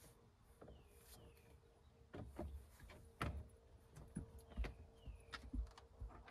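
A dog getting up and moving about inside a van: scattered faint knocks and clicks from its steps and trailing leash, stronger from about two seconds in. A few faint high falling chirps are heard as well.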